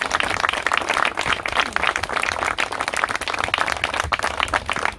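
A small crowd applauding, many hands clapping in a dense, steady patter.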